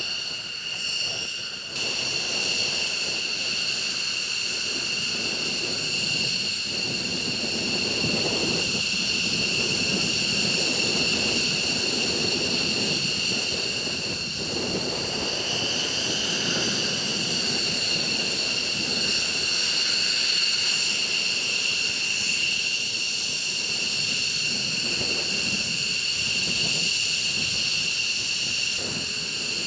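Twin-engine F-15E Strike Eagle jets taxiing. The engines give a steady, high-pitched turbine whine over a broad rumble.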